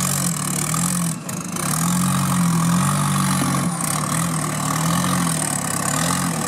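Off-road trial buggy's engine revving up and down in short throttle blips as it crawls up over boulders, with a brief lift off the throttle about a second in.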